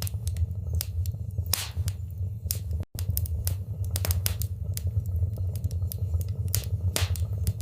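Wood fire crackling in a fireplace: frequent sharp pops and snaps of varying loudness over a steady low rumble of burning. The sound cuts out for an instant about three seconds in.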